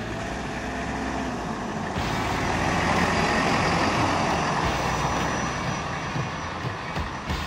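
Toyota dual-cab ute driving past close by, its engine and tyre noise swelling to a peak about halfway through and then fading as it pulls away.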